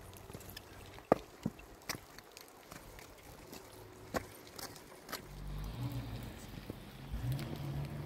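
Scattered sharp clicks and knocks of people walking and a wheeled cart being pulled over gravel. About five seconds in, a low engine rumble starts, shifting in pitch and rising briefly near the end.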